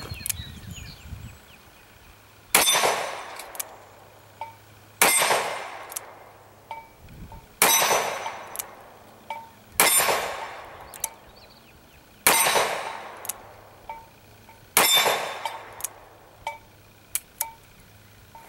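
Six shots from a Smith & Wesson Model 27-2 .357 Magnum revolver, about two and a half seconds apart, each followed by a long echoing tail, with lighter clicks between the shots.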